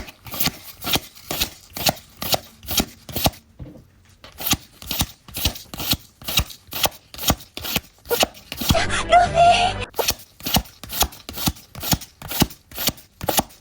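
Trading cards being flicked through one at a time, a sharp card snap roughly three times a second. About nine seconds in, a brief, different, denser sound breaks in.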